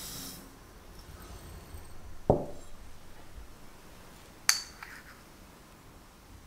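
Granulated sugar poured into a glass mixing bowl, a brief hiss at the start. Then a single dull knock about two seconds in, and a sharp clink of kitchenware with a short ring a couple of seconds later.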